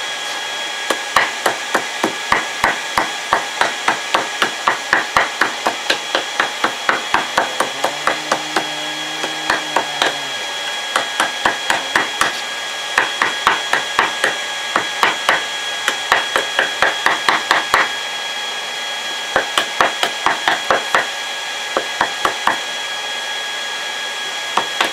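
Hammer blows dishing a hot metal disc into a hollow in a wooden block on an anvil, struck in quick runs of about two a second with short pauses between. A steady high whine runs underneath.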